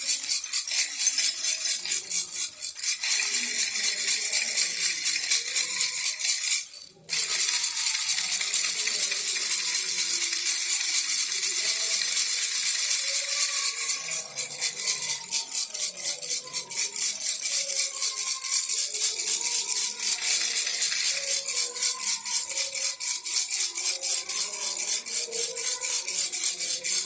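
Baby rattle shaken steadily, a fast continuous rattling of small beads, with a brief pause about seven seconds in.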